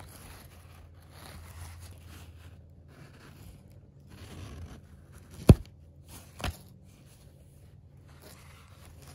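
Soft scraping and rustling of Kleenex Complete Clean toilet paper as the roll is handled and a sheet is pulled off. Midway come two short, sharp clicks about a second apart.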